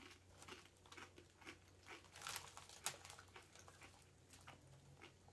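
Faint crunching of a potato chip being chewed with the mouth closed, a scatter of soft irregular crackles.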